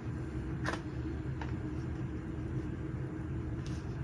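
A few light clicks of plastic phone-stand parts being handled and fitted together, over a steady low background hum.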